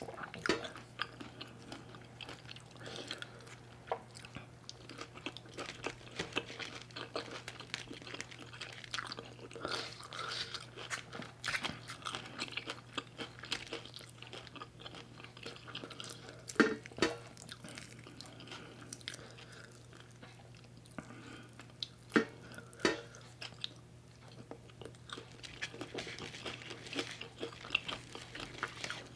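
Close-miked mukbang chewing: a person eating Isaan steamed fish roe with sticky rice by hand, with irregular wet mouth sounds and bites. The sharpest, loudest bites come about 17 seconds in and twice around 22 to 23 seconds.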